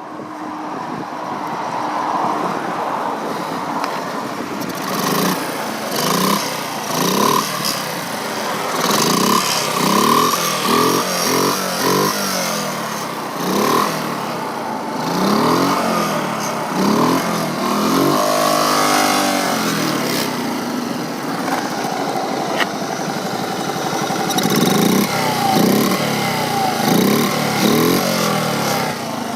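1969 Honda Monkey's small four-stroke single-cylinder engine running and revving up and down again and again, its pitch climbing in repeated sweeps.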